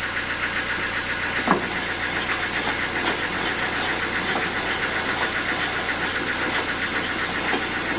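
A sawmill's engine running steadily with a fast, even pulsing beat, and one sharp knock about a second and a half in.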